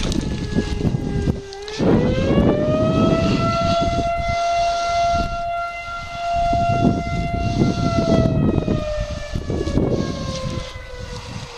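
Siren wailing: about two seconds in its pitch winds up and it holds one steady tone, then from about eight seconds it slowly winds down. A low rumbling noise runs underneath.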